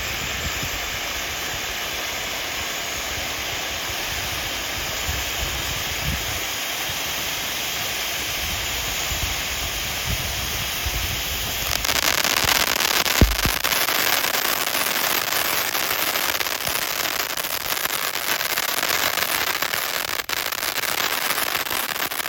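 A 500-gram consumer firework fountain spraying with a steady, loud hiss. About halfway through it grows louder and denser, with one sharp pop shortly after.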